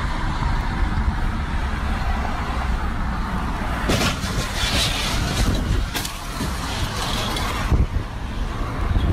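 Road noise heard from inside a moving car on a freeway: a steady low rumble of tyres and engine with hiss, broken by a few sudden louder noises about four, six and eight seconds in.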